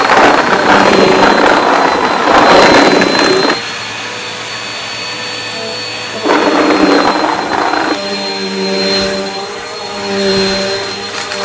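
Bissell PowerLifter upright vacuum running on a rug with a steady motor whine. Loud rattling crunch of debris being sucked up fills the first three and a half seconds and comes back for about a second and a half in the middle.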